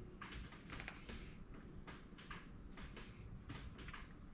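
Faint, irregular light clicks and scrapes as a long-handled wrench slowly turns a main bearing cap bolt on an LS V8 engine block, over low room hum.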